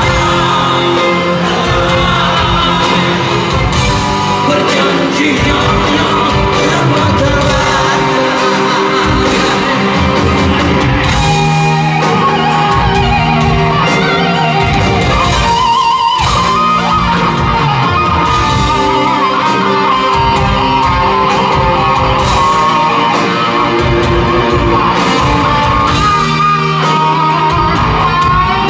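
Rock band playing live in a concert hall: loud, continuous guitar-driven music with a singer, heard as a raw recording from the venue.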